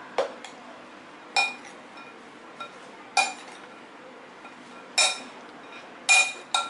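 Metal spoon clinking against the side of a glass mixing bowl while stirring a chopped salad, about seven sharp clinks at uneven intervals, some ringing briefly.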